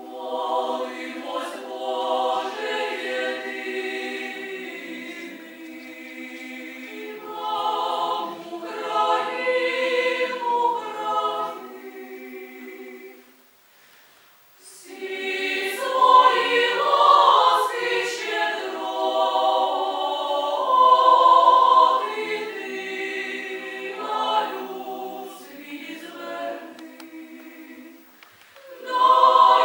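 Female chamber choir singing a cappella in sustained phrases, with two short breaks: one about halfway through and one near the end.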